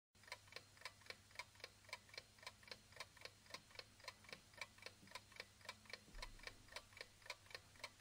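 Faint clock ticking, a steady train of short ticks at about four a second.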